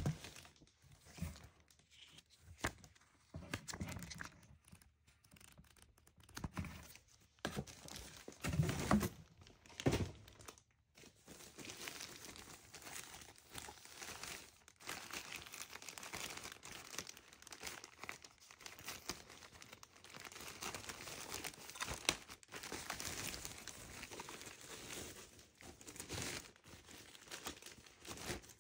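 A few knocks and scrapes of a cardboard box being handled, then a long stretch of thin plastic packaging bag and foam wrap crinkling and rustling as it is pulled open and off.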